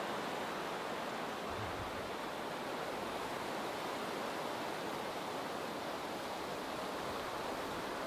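The bise, a cold north wind, blowing hard: a steady, even rushing noise with no pauses.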